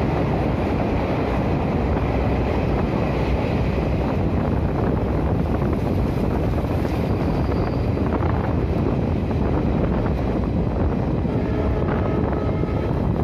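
Jan Shatabdi Express passenger train running at speed, heard from an open coach doorway: a steady rumble and rattle of the wheels and coaches on the rails.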